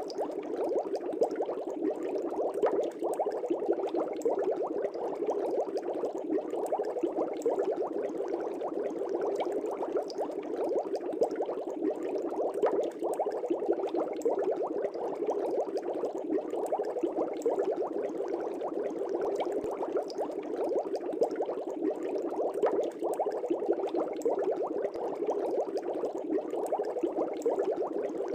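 Air bubbles bubbling steadily in a fish tank's water, a dense, unbroken bubbling.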